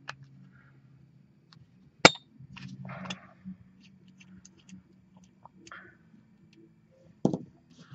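A 3/8-inch wrench working the brass high-pressure burst disc loose from a paintball HPA tank regulator: a sharp metal clink about two seconds in, then brief scraping and light ticks of metal on metal, and another knock near the end.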